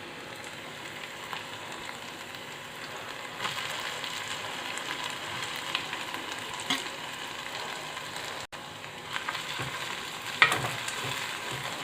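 Chopped beans and carrots sizzling as they are sautéed in oil with onion and tomato in a pan, with the stirring spoon scraping and tapping against the pan. The sizzle grows louder about three and a half seconds in.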